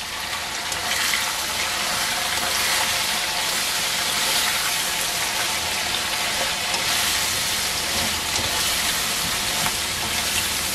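Green beans, onion and garlic sizzling as they stir-fry in a hot nonstick wok, with a spatula stirring and turning them through the sauce.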